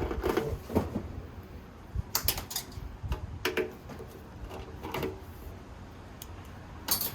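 Scattered knocks, clicks and light rattles of a toolkit being handled on a shelf.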